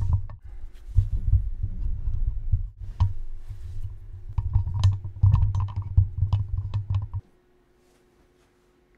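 Handling noise from recording equipment being adjusted: irregular low bumps and rumbles with scattered sharp clicks, cutting off abruptly about seven seconds in.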